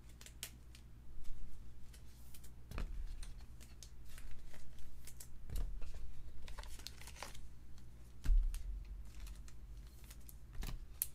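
Trading cards and their plastic holders being handled and laid on a table: scattered light clicks and rustles, with three soft thumps.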